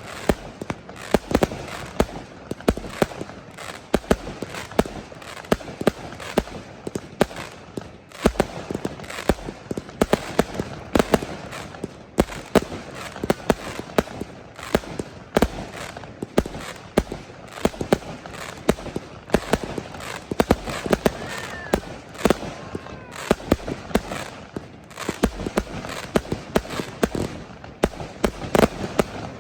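Fireworks going off: many sharp bangs and cracks at irregular intervals, several a second.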